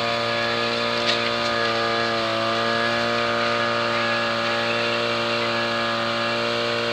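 Small portable engine-driven water pump running steadily at constant speed, pumping water from the pond into the fire hoses.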